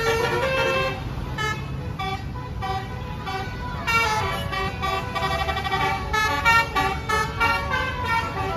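Tour bus's basuri multi-tone air horn playing a tune in quick stepped notes, over the low rumble of the bus's engine.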